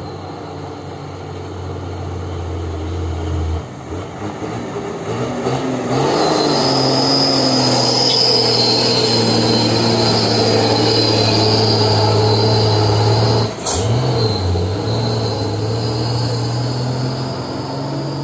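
Dump truck's diesel engine labouring as the truck climbs a steep dirt grade and passes close by, growing louder after about six seconds. A high steady squeal rides over it until a sharp click about thirteen and a half seconds in, after which the engine note dips briefly and picks up again.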